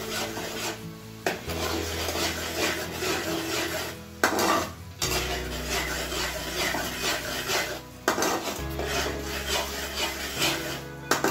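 Metal spatula scraping and stirring round a metal kadai in repeated strokes, with the thick ground onion, ginger, garlic and coriander paste sizzling as it fries in oil to cook off its raw smell.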